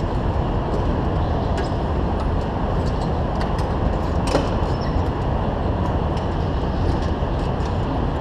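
Go-kart engines idling together as a steady low rumble, with a few faint clicks and taps over it.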